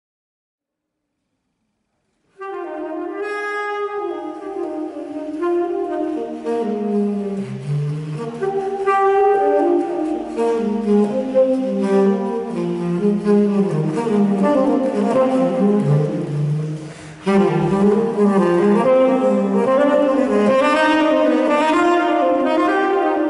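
Unaccompanied tenor saxophone improvising a jazz line, one note after another, starting about two seconds in. It dips briefly about two-thirds of the way through, then comes back in loud.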